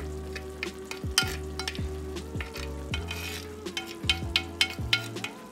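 Metal spoon scraping and stirring in a clay cooking pot, with short repeated scrapes and clicks, while the fish and coconut mixture sizzles as its liquid cooks down. A steady low hum runs underneath.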